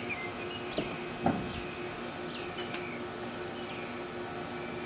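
Two dull thumps about a second in, the second the louder, as padded vinyl boat-interior panels are handled in a pickup truck, while a bird chirps repeatedly, each call a quick downward slide, over a steady low hum.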